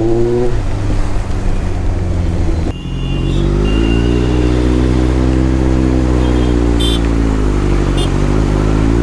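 Motorcycle engine accelerating under the rider, its pitch rising, breaking off briefly about three seconds in, then climbing again with another short dip near the end, over wind and road noise.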